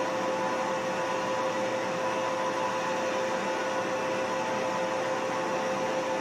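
Drilling machine's motor and spindle running at about 600 rpm: a steady hum with a constant whine.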